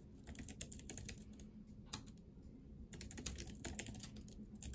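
Typing on an OA folding Bluetooth keyboard: quick runs of key clicks, with a pause of about a second partway through before the typing picks up again. The keys are noisier than the keyboard was said to be.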